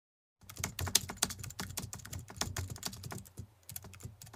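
Computer keyboard typing: a quick, irregular run of clicks that starts and stops abruptly, with a short pause about three and a half seconds in.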